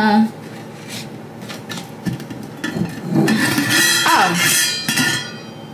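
Metal screw-on lid of a large glass jar dispenser being twisted, scraping and clicking against the glass threads, louder and more rasping from about two and a half seconds in.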